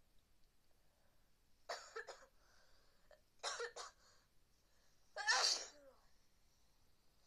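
A person with a head cold sneezing three times, about a second and a half apart, the third sneeze the loudest.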